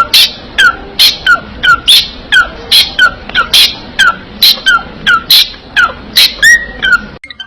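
Parrot giving a rapid series of short, sharp calls, about three a second, each one a quick squeak that drops in pitch.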